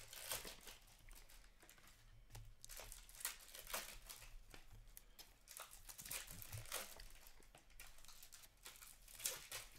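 Faint, irregular flicks and rustles of hockey trading cards slid off a stack and flipped over by hand, one after another.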